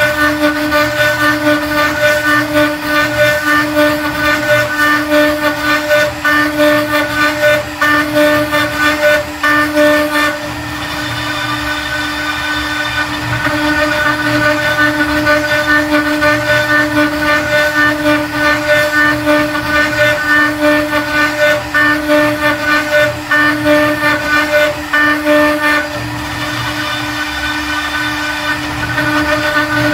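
Discovery GR0606 CNC router's 800 W spindle at 18,000 rpm, driving a 6 mm downcut bit through MDF in a pocketing cut: a steady spindle tone under a rough cutting noise that rises and falls rapidly. The cutting noise drops for a few seconds twice, about a third of the way in and near the end.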